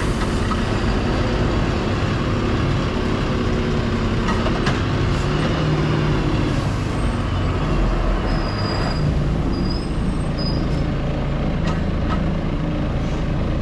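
Six-cylinder diesel engine of a Volvo FE 320 lorry running steadily, its pitch shifting slightly, while the Hiab loader crane works off the engine to unload. A few faint clicks and knocks are heard.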